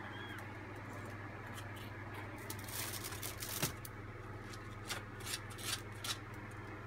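Three-week-old kittens scrabbling with their claws on a cardboard box and blanket as they crawl: bursts of dry, scratchy rustling with a sharp tap about three and a half seconds in. Under it runs a low steady hum.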